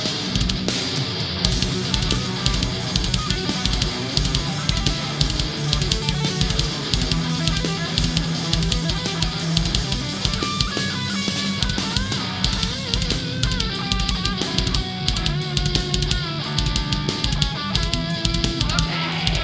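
Groove metal band playing live: distorted electric guitars over a drum kit with rapid bass-drum strokes. About halfway through, a higher bending melodic line weaves in.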